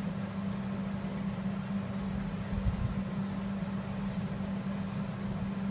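A steady low hum with an even hiss underneath, like a fan or appliance running, with a couple of soft low thumps about halfway through.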